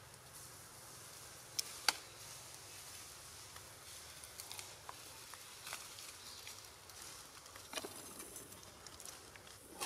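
Faint outdoor ambience with a soft steady hiss and a few scattered sharp clicks, two of them close together about two seconds in.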